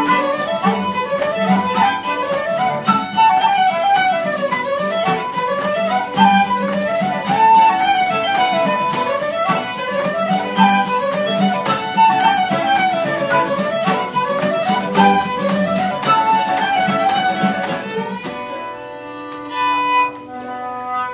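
Irish traditional session music: fiddle leading a fast dance tune in unison with the other melody instruments over a steady rhythmic pulse. About eighteen seconds in, the running melody stops and the players hold out a few final notes, ending the set.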